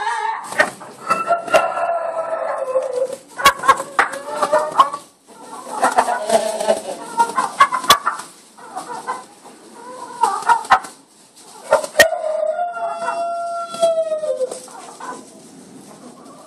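A flock of chickens clucking and squawking in quick, overlapping calls, with one long drawn-out call about twelve seconds in that drops in pitch at its end. A few sharp knocks cut in among the calls.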